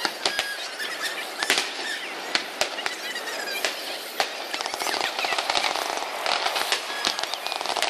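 Aerial fireworks shells bursting: a series of sharp, separate bangs, then from about four and a half seconds a dense crackling from crackle-effect stars.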